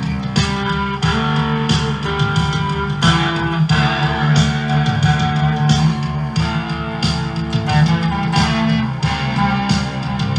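Electric guitar music played on a Juarez electric guitar through a Zoom G1X Four effects processor into a Fender Mustang amplifier, over a steady beat.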